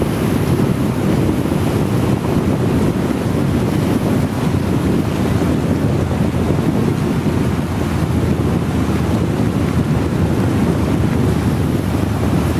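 Steady low wind rumble on the microphone of a moving motorcycle, over an even hiss of heavy rain and wet road.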